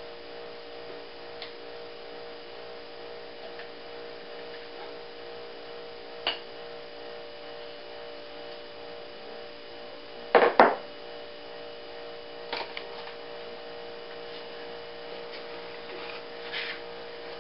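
A steady electrical hum throughout, with a few short knocks and scrapes of a spoon against a container as brownie batter is spooned into a pan; the loudest is a quick pair about ten seconds in.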